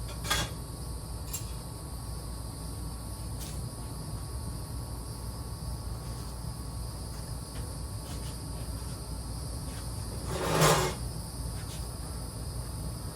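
Insects trilling steadily in a high, unbroken drone, with a few faint clicks and one brief, louder knock about ten and a half seconds in as the lattice and brackets are handled.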